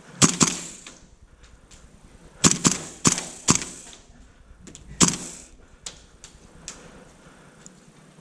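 Airsoft guns firing single shots: about seven sharp cracks, a pair near the start, a quick cluster of four mid-way and one more near the end, each echoing briefly in an indoor close-quarters arena.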